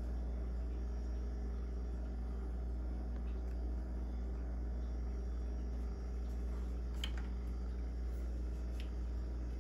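A steady low hum, with two faint clicks in the last few seconds.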